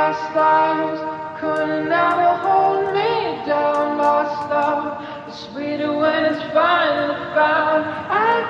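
Background pop song: a sung vocal melody over soft accompaniment, starting abruptly.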